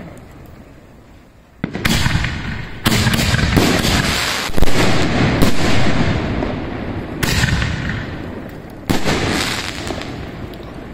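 Aerial firework shells bursting overhead: about six loud bangs spread over some seven seconds, starting about a second and a half in, each followed by a long rumbling decay.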